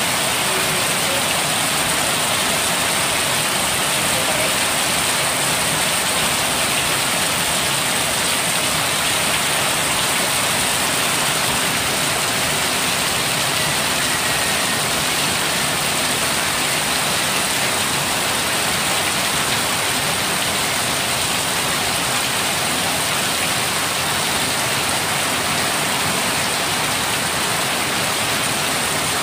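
Heavy rain pouring down in a steady, even hiss, with sheets of water streaming off the edge of a corrugated roof.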